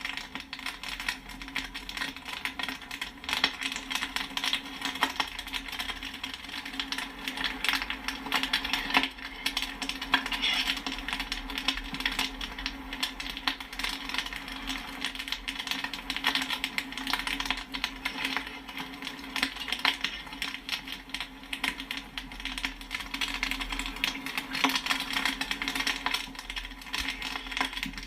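Popcorn kernels popping in a dense, irregular stream of sharp pops and pings, with a steady low hum underneath.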